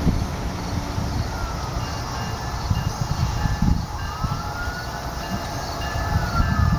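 Passenger train cars rolling away on curved track: a steady low rumble with irregular thumps of wheels over rail joints, and faint squealing tones that rise and fall.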